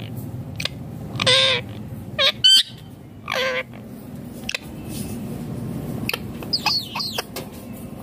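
Male Indian ringneck parakeet (rose-ringed parakeet) calling. There are two short pitched calls about two seconds apart, with a couple of loud, shrill screeches between them, and a quick run of high chirps near the end.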